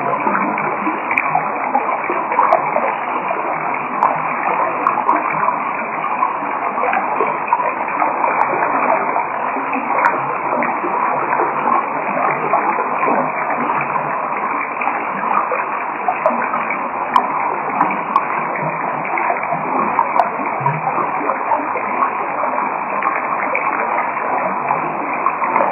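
Steady, dense crackling noise, muffled with nothing in the high range, with scattered sharp clicks throughout.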